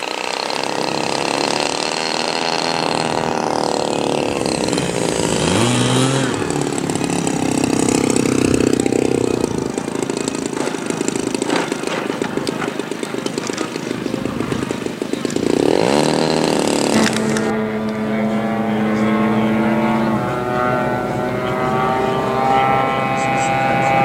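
Large-scale radio-controlled airplane's engine running throttled back on a landing approach and touchdown. Its pitch rises briefly about five seconds in and again near sixteen seconds, then holds steady.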